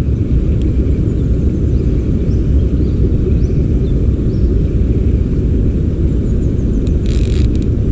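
Steady low rumble of flowing stream water on the camera's microphone, with a brief hiss about seven seconds in.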